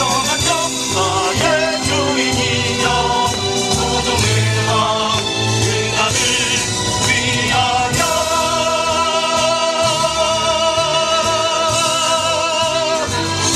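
A song: singing over bass and accompaniment, with a long, wavering held note in the second half.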